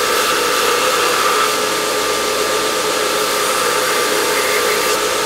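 Belt grinder running with a hardened O1 tool-steel piece pressed against the belt, a steady hiss with a steady motor whine. The steel is being ground to bright spots so that the temper colours will show.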